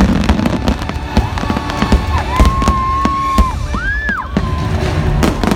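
Fireworks bursting in quick succession, many sharp bangs and crackles, over the show's soundtrack music with long held notes.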